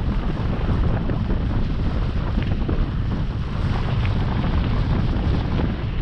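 Wind buffeting the microphone of a camera on a mountain bike moving down a dirt-and-gravel trail, over the rolling rumble of the tyres, with small scattered clicks and rattles.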